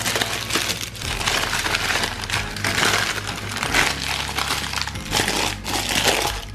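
Baking paper crinkling and rustling as it is crumpled and pressed by hand into a glass baking dish, with soft background music underneath.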